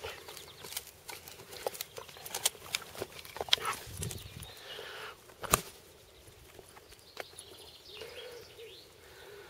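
Irregular knocks, bumps and rustles from a Weimaraner's tug-of-war over a stick held by the person filming, the sharpest knock about five and a half seconds in. After that it goes quieter, with faint birdsong near the end.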